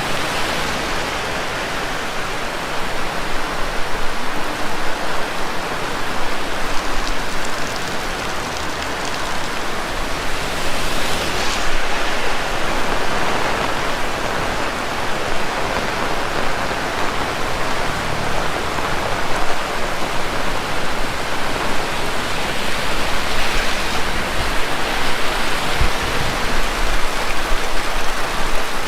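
Heavy rain pouring steadily, a dense even hiss of drops hitting the ground and surfaces.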